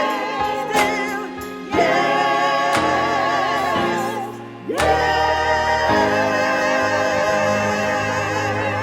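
Gospel music: a choir singing long held chords with vibrato over sustained instrumental backing, moving to a new chord about two seconds in and again about five seconds in.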